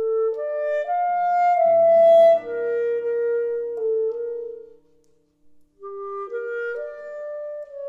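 Clarinet playing a klezmer melody in two phrases, with a pause of about a second and a half between them. Guitar chords sound low beneath the middle of the first phrase.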